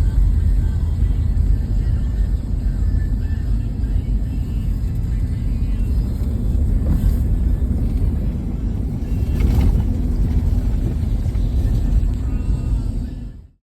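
A vehicle running, a steady low rumble that cuts off abruptly near the end.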